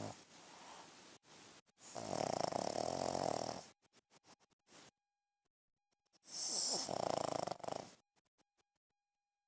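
A dog snoring loudly: two long snores about four seconds apart, each lasting roughly a second and a half, with a quieter breath before the first.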